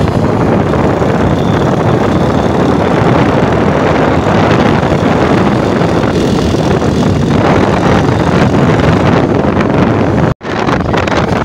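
Wind rushing over the microphone together with road and engine noise from a moving motorcycle, a loud steady rumble that cuts out for an instant about ten seconds in.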